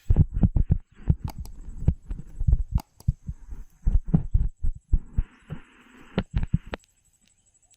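A rapid, irregular series of dull, low thumps for about seven seconds, stopping near the end.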